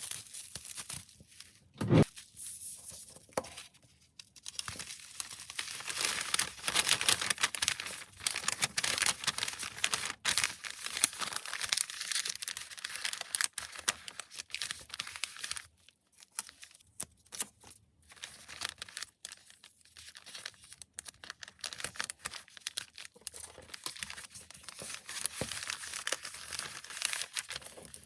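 Plastic packaging crinkling and tearing as it is handled, in uneven spurts with short pauses, with a single sharp knock about two seconds in.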